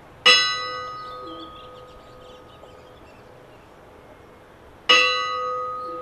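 Kaupangskirkja's church bell struck twice, about four and a half seconds apart, each stroke ringing out and fading slowly.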